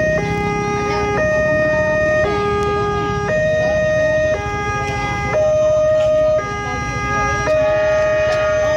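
Railway level-crossing warning alarm sounding with the barrier down, an electronic two-tone signal that alternates between a higher and a lower tone about once a second.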